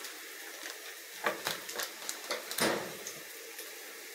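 Jiló-and-sardine fritters frying in hot oil in a pan, a steady sizzle, with a few short knocks and clicks, the loudest about two and a half seconds in.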